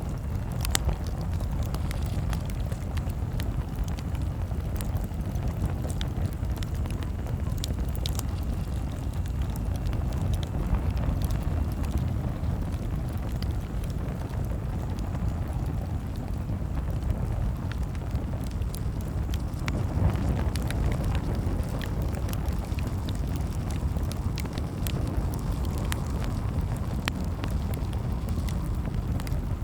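Bonfire burning: a steady low rumble with frequent sharp crackles and pops scattered throughout.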